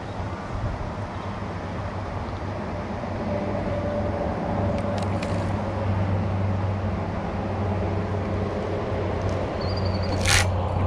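Steady low hum of a small motor, a little louder from about three seconds in, with a sharp click near the end.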